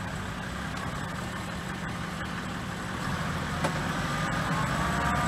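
Toyota Land Cruiser 80 series' 1HD-T straight-six turbo-diesel running at low revs while crawling through deep mud, growing louder about three seconds in as it takes more throttle. A single sharp click comes shortly after.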